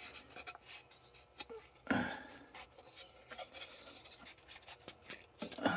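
Thin wooden propeller blades and a wooden hub handled on a workbench: light clicks and rubbing of wood on wood as a blade is slid into a slot in the hub, with one louder knock about two seconds in.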